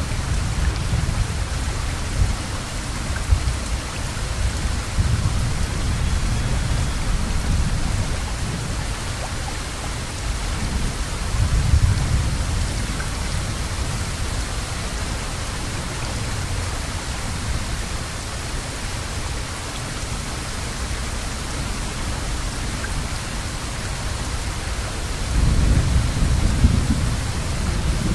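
Heavy rain falling in a steady hiss, with low rumbles that swell and fade several times, the strongest near the end.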